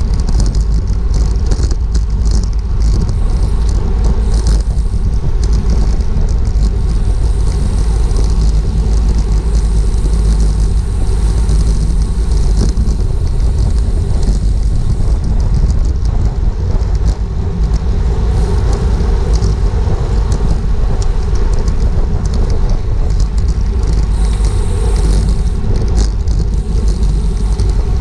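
Heavy wind rush and buffeting on a GoPro's microphone carried on a racing bicycle at speed, with a steady light rattling and ticking from the bike and road running through it.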